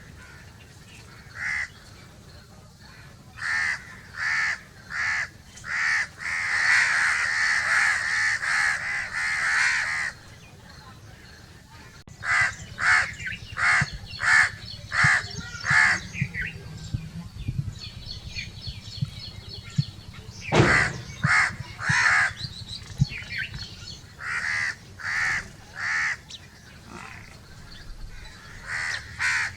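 Many crows cawing: a string of short harsh caws that build into a dense overlapping chorus from about six to ten seconds in, then, after a short lull, single caws again.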